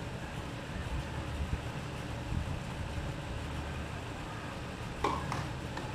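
Steady low outdoor rumble, with three sharp knocks close together about five seconds in, the knock of a tennis ball on racket or court.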